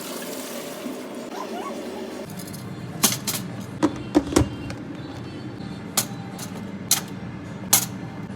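Kitchen clatter while cooking: a brief hiss like running water at first, then a low steady hum with seven sharp clinks and knocks of kitchenware.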